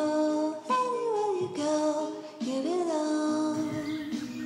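Background music: a slow song carried by a high singing voice, with held notes that slide between pitches.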